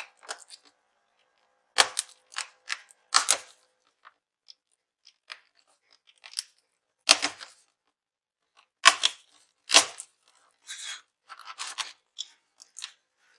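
Sharp plastic clicks and crackles from a Dell Inspiron N5110 laptop keyboard as it is pried out of its palmrest retaining clips. They come in irregular clusters with short pauses between them.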